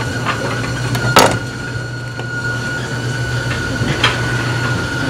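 Steady low hum of restaurant kitchen equipment with a thin high whine over it, broken by one sharp knock on the counter about a second in and a lighter click near four seconds.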